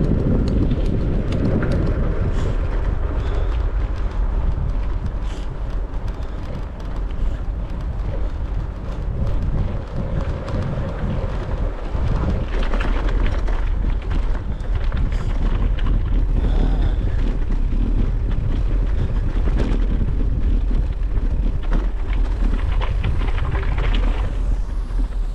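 Wind rumbling over the microphone of a bicycle-mounted camera while riding, with steady road and tyre noise and occasional light rattles.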